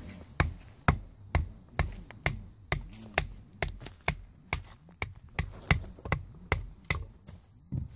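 Wood-on-wood knocking: a wooden baton striking the top of an upright stick held on a log, about two sharp knocks a second in a steady rhythm.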